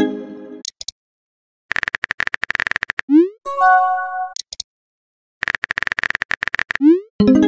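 Phone texting-app sound effects. A message chime fades out at the start. Then comes a fast run of keyboard taps, a short rising swoosh and a chiming tone as a message appears. After a pause, a second run of keyboard taps, swoosh and chime follows near the end.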